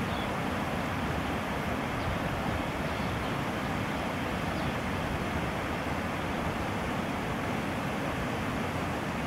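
Steady rushing of river water spilling over a low concrete weir, an even wash of noise with no distinct events.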